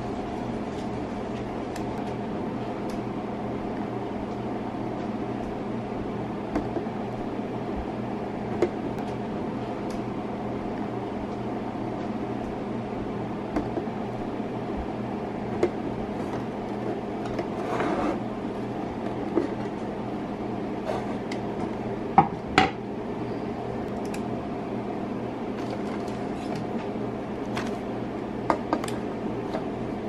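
Hard clear plastic parts of a pet water fountain clicking and knocking as they are lifted out and set down, with a brief rustle of plastic wrapping, two sharp knocks in quick succession about three-quarters of the way in. A steady low hum runs underneath.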